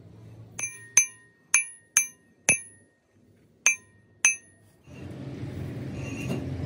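A hard, ringing metal object struck lightly about seven times in an uneven rhythm, each clink ringing briefly at the same bright pitches. From about five seconds in, a steady rumbling noise takes over.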